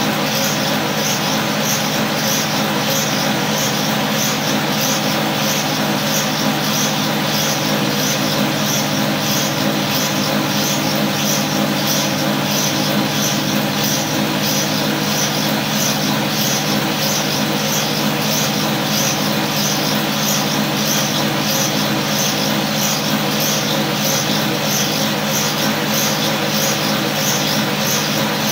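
Cotton candy machine running steadily: a constant motor hum with a high whir that pulses evenly as the spinner head turns.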